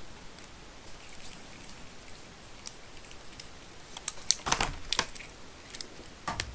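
Small screws driven by hand into plastic RC car suspension parts: scattered light clicks and ticks of the screwdriver and parts, with a few louder clicks about four to five seconds in and again near the end.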